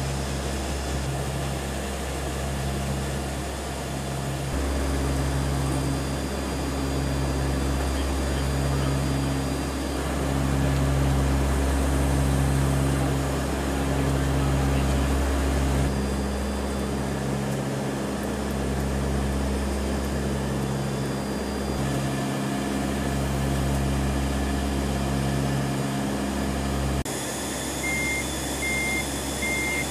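Cabin drone of a P-3 Orion's four Allison T56 turboprop engines and propellers in flight, a steady hum with a slow, regular throb as the propellers beat against each other. Three short high beeps sound near the end.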